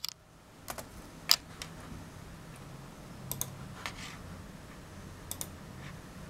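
A few scattered clicks of a laptop's keys at irregular intervals, the loudest about a second in, over a faint low steady hum.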